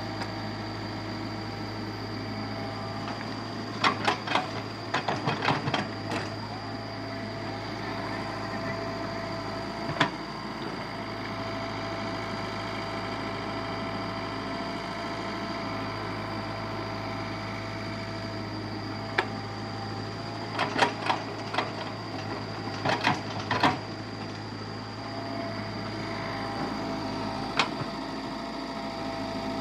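Small electric motors and gearboxes of a miniature RC excavator and tipper running with a steady whirring hum. Two bursts of sharp clicks and clatter come about four seconds in and again about twenty seconds in, with a few single clicks between.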